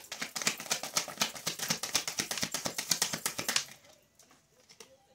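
A deck of tarot cards being shuffled by hand: a rapid run of card clicks, about ten a second, that stops about three and a half seconds in.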